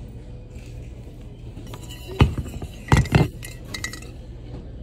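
Hard objects clinking and knocking together as a bin of clothes is rummaged through by hand: a sharp knock about two seconds in, then a louder pair of clinks a second later, each followed by a short high ring, and a few lighter ticks, over a steady low hum.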